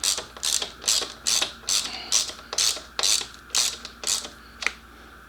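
Hand ratchet wrench tightening a bolt, its pawl clicking in repeated back-and-forth strokes about two to three a second, stopping near the end.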